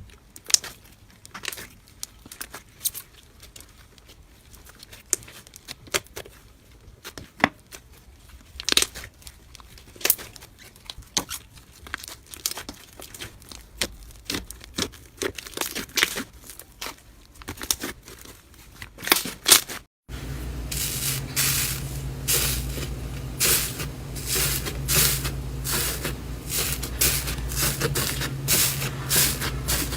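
Soft slime being squeezed and stretched by hand, giving irregular sticky pops and crackles. About two-thirds of the way through it cuts to a louder clip, with quicker pops over a steady low hum.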